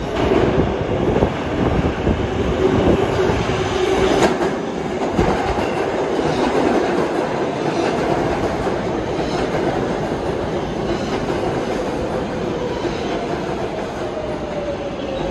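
R188 subway train moving through the station, wheels clacking over the rails under a steady running hum, with a tone that falls in pitch over the last few seconds.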